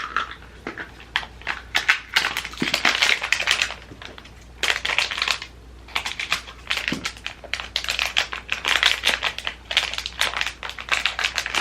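Crinkling and rustling of small packaging, with many sharp little clicks, as pins are handled and taken out of an advent calendar's boxes. It comes in three stretches, the longest near the end.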